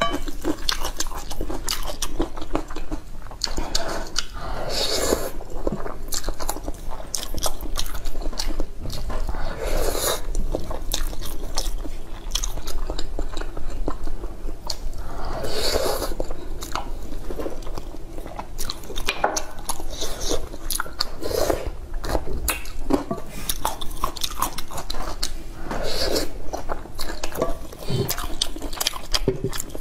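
Close-miked wet chewing and mouth smacking of stir-fried noodles in meat sauce, a steady run of small clicks. A louder, noisier burst of mouth sound comes about every five or six seconds.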